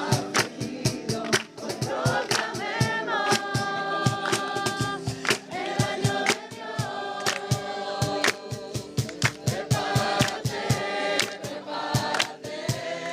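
Several voices singing a song together, choir-like, over a steady beat of sharp hits.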